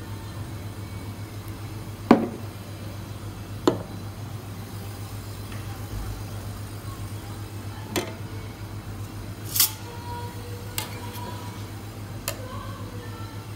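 Coffee cups and stainless steel milk pitchers knocking and clinking as they are set down on a counter, about six separate knocks, with a short hiss about nine and a half seconds in and a steady low hum underneath.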